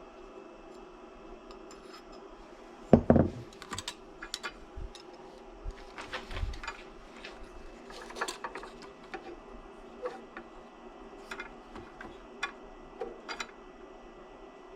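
Scattered small clicks and knocks of hard objects being handled, with one heavier thump about three seconds in, over a faint steady hum.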